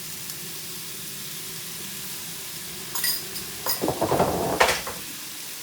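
Stir fry sizzling steadily in a pan, with sharp metal clinks of a utensil against the pan about three seconds in. It is followed by a louder, noisier surge of sizzling and stirring lasting about a second.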